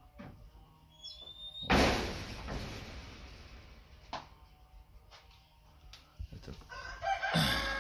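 A match struck and flaring up about two seconds in, then fading, as it lights split kindling in a wood-burning stove's firebox. A short knock follows a couple of seconds later, and there is a second loud, rough sound near the end.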